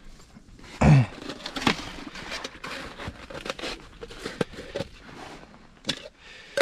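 Close handling noise from fishing tackle: rustling, crinkling and small clicks. About a second in there is a brief, loud, low sound that drops in pitch.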